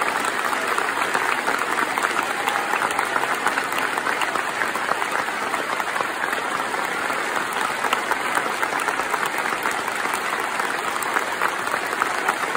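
A large audience applauding: dense, steady clapping from thousands of hands.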